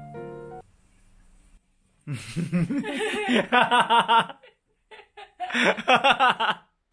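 A woman laughs in two runs of quick, rhythmic bursts, set off by a sharp breath about two seconds in. Soft piano music fades out in the first second.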